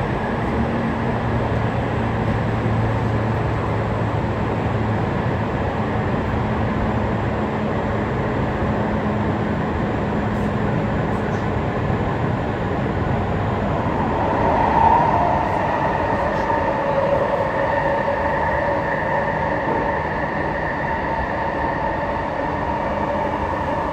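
Tokyu 5050 series electric train running: a steady rumble of wheels on rail with a low motor hum that fades out after about five seconds. From about fourteen seconds, higher steady tones join in over the rumble.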